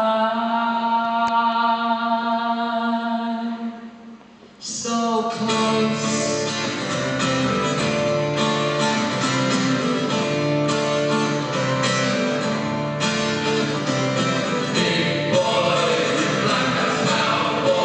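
Live band with orchestra and choir. A held chord of voices fades out about four seconds in, and after a brief lull the full ensemble comes in with singing and acoustic guitar.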